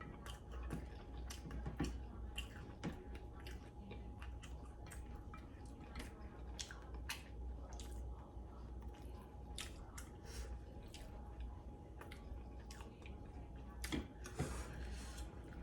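Chicken wings being eaten close to the microphone: irregular wet chewing, biting and lip-smacking clicks, a few louder smacks near the end.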